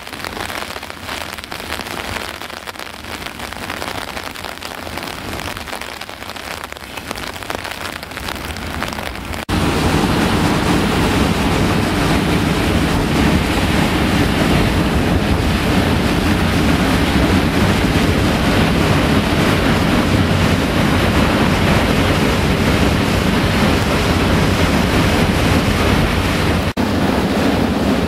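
Floodwater pouring over a dam's spillway crest: a steady, loud rush of falling water. About nine seconds in it becomes suddenly louder and deeper.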